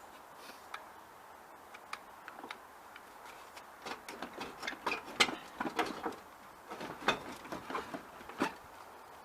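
Scattered clicks and clunks of handling a VW Beetle's engine on a jack, sparse at first and thickest from about four to eight and a half seconds in.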